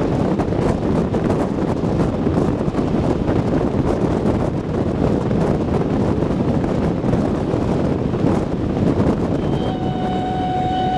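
Double-headed SBB steam locomotives C 5/6 2978 and A 3/5 705 working a train, a loud, steady rush of exhaust and running noise mixed with wind on the microphone. Near the end a locomotive steam whistle starts sounding one steady note.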